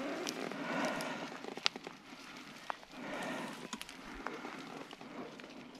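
Paraglider lines and brake toggle being handled in long grass: soft rustling that swells and fades, with a few sharp clicks.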